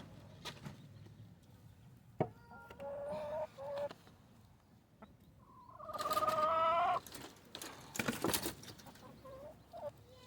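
Chickens calling: a couple of short pitched calls about three seconds in, then a longer, louder drawn-out call about six seconds in, with a few light knocks around eight seconds.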